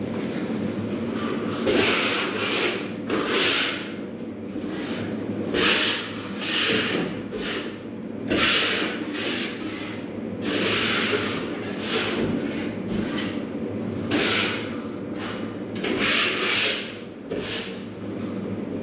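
Repeated strokes of a hand tool scraping over a plasterboard wall, a dozen or so, each lasting about half a second to a second, with short pauses between them. A steady low hum runs underneath.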